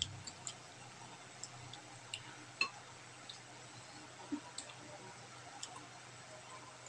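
Sparse, soft clicks and ticks of people eating with their hands, fingers picking at fried fish and greens on plates, with the sharpest click a little after two and a half seconds in.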